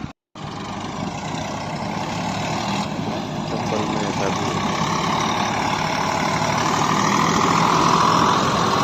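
Tractor engine running steadily, growing gradually louder, after a brief drop-out of sound at the very start.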